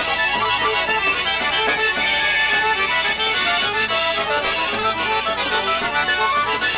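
Polka band playing an instrumental passage, the accordion carrying the melody.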